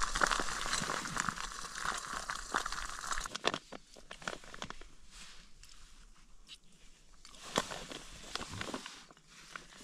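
A steady rushing hiss from a camping stove under a steaming pot for about three seconds. Then a plastic food pouch crinkles and a spoon clicks as boil-in-the-bag pasta is eaten from the pouch.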